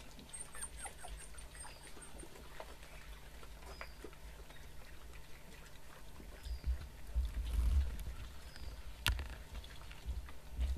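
African wild dog pups squeaking faintly and scuffling as they tug at and chew pieces of meat, with small clicks throughout. A low rumble swells about seven seconds in, and there is a sharp click about nine seconds in.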